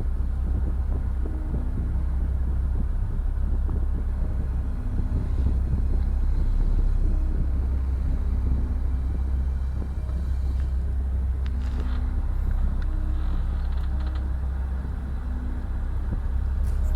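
Steady low rumble, with a few faint small taps about two-thirds of the way through.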